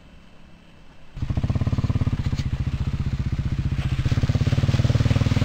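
Kawasaki KLX250S dirt bike's single-cylinder four-stroke engine with an FMF exhaust, running at low speed with a fast, even pulsing beat. It comes in abruptly about a second in after a quiet start and grows louder as the bike approaches.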